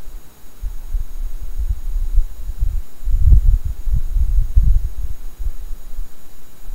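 Wind buffeting the microphone: irregular low rumbling thumps, heaviest around the middle.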